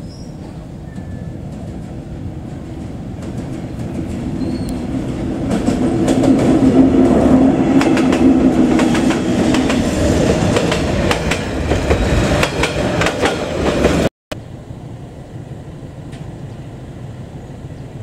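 Vietnam Railways D20E diesel locomotive and its passenger train approaching and passing close by: the engine's drone builds to a loud peak, and the cars' wheels clack over the rail joints. The sound cuts off abruptly about 14 seconds in, and a quieter steady rumble follows.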